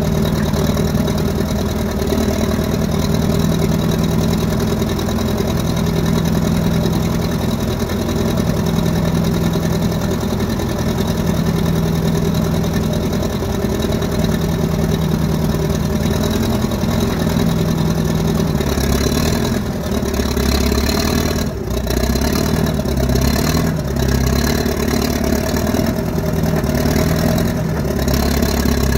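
Case 1000D crawler dozer's engine running steadily. About two-thirds of the way through, its speed starts to waver up and down.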